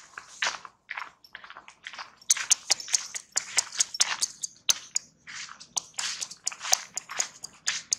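Footsteps crunching through dry fallen leaves: irregular crackling steps, sparser at first and then denser and sharper from about two seconds in.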